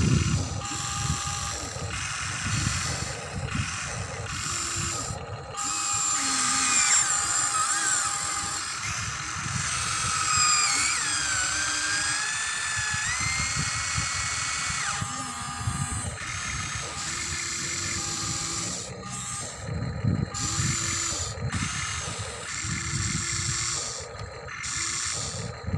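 Huina RC excavator's electric motors whining as the boom and bucket dig and swing, the pitch sliding down and up as the load changes. A low crunch of dirt under the bucket runs beneath it.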